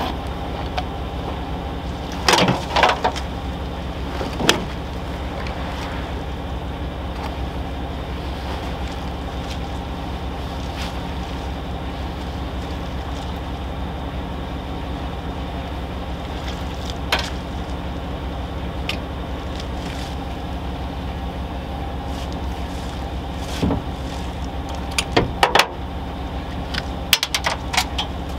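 Pickup truck engine idling steadily, with scattered knocks and clatters of gear being handled and set down in the truck bed, several of them close together near the end.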